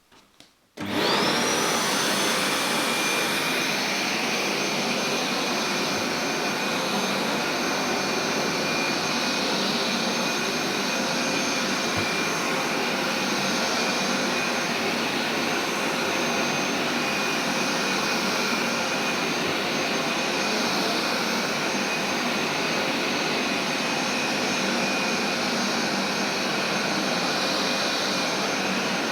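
Carpet steam cleaner's suction motor switching on about a second in, its whine climbing quickly to a high pitch, then running steadily.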